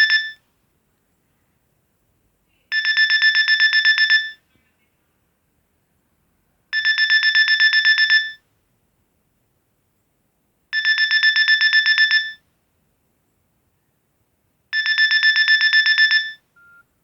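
Nokia 2610 mobile phone playing a ringtone through its speaker: a fast, fixed-pitch trill in bursts of under two seconds, repeating every four seconds like a telephone ring. A short faint beep comes near the end.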